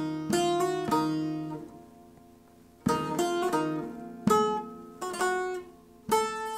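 Long-neck bağlama picked with a plectrum, playing a short phrase of single notes that rings and fades out. After about a second's pause, a new run of notes starts and continues.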